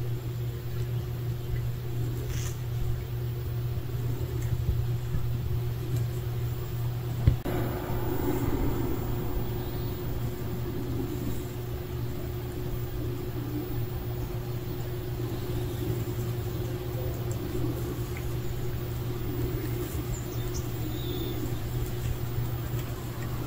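Steady low mechanical hum with one sharp knock about seven seconds in.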